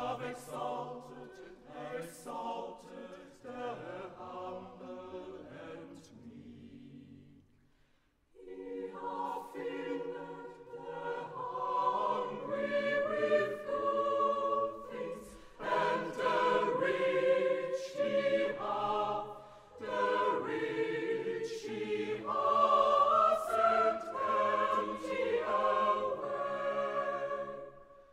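Choir singing a carol: a quieter opening phrase, a brief pause about eight seconds in, then fuller, louder singing.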